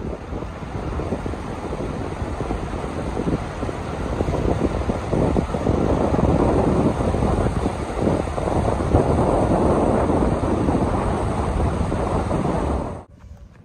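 Wind buffeting the microphone: a loud, gusty rushing roar that cuts off suddenly near the end.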